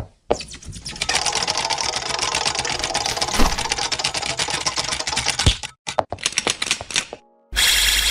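Cartoon sound effects for an animated intro: a fast rattling clatter of clicks for about five seconds, then a few separate knocks, then a short harsh burst of static-like electronic noise near the end.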